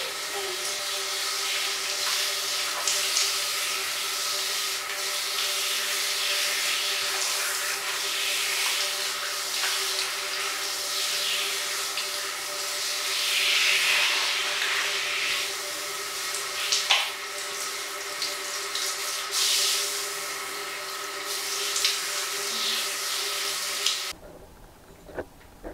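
Handheld shower head spraying water onto a cat's wet fur during a bath, a steady hiss of running water. It cuts off abruptly near the end.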